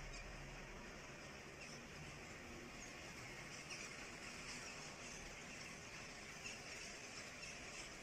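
Faint, scattered short calls of a large flock of birds flying overhead, over a steady background hiss; the calls come more often from about three seconds in as the flock arrives.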